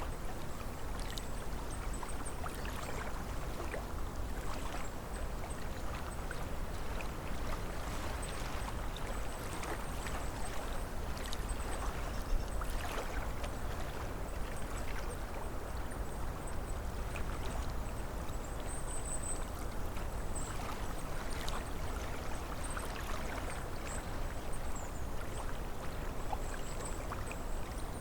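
Small waves lapping and splashing against a lake shore in a steady run of little splashes, over a low rumble of wind.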